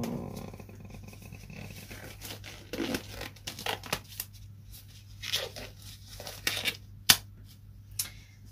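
Thin disposable rubber gloves being pulled onto the hands: irregular rustling, crinkling and snapping of the rubber, with one sharp snap near the end. A steady low hum runs underneath.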